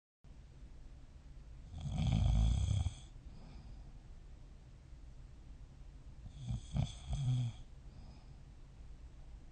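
A person snoring in sleep: one long snore about two seconds in, then a second, choppier snore broken into a few short pulses about seven seconds in.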